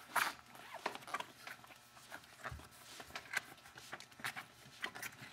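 Hands feeding a rubber inner tube into a sulky wheel's tire on its rim: scattered soft rustles and taps, with one dull thump about halfway through.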